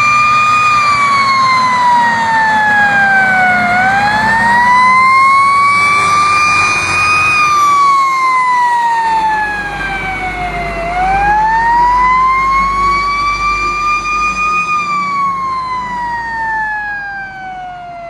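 Siren of a FAP 13 fire truck wailing in slow rises and falls, about seven seconds per cycle, over the truck's engine running as it drives past. The sound fades over the last couple of seconds as the truck moves away.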